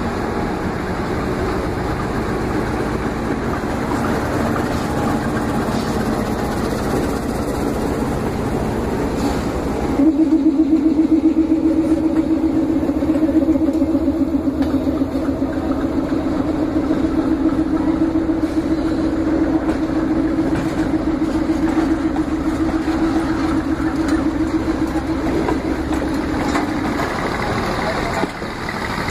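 Train passing close by: a diesel locomotive running past hauling a crane and flat wagons. About ten seconds in, a louder steady drone with a fast rattle sets in as the wagons roll by, and it stops shortly before the end.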